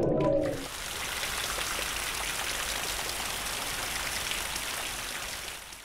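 Rain-like patter of water droplets, a steady crackling hiss that fades out near the end, laid over the closing card. A pitched sound breaks off about half a second in.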